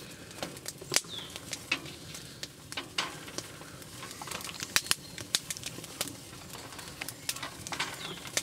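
Cooking over a campfire: irregular sharp crackles and pops of bacon fat spattering in a frying pan, with the wood fire crackling.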